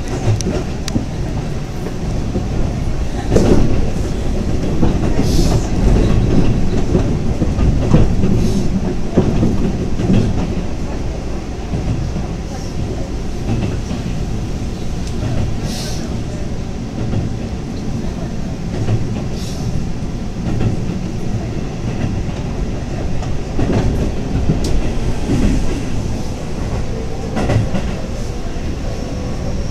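Keihan electric train heard from inside the carriage while running at speed: a steady low rumble of wheels on rail, with several sharp clacks over rail joints. A faint rising whine comes in near the end.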